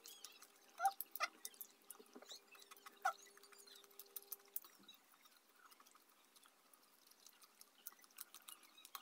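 Faint eating sounds from chewing and tearing crispy fried pig head meat and skin: scattered small crunches and wet mouth clicks, most of them in the first half, then mostly quiet.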